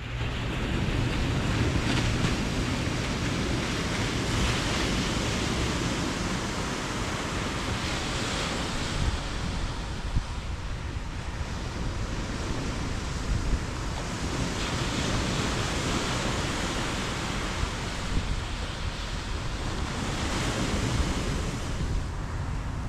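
Ocean surf washing against the shore, swelling and easing every several seconds, with wind rumbling on the microphone.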